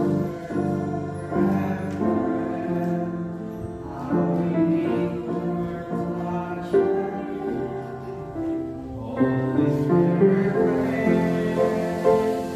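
Kawai grand piano accompanying a small group of singers.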